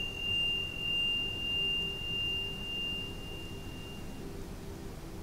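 A single high, pure ringing tone that fades out about four seconds in, over a low hum that swells and dips about one and a half times a second.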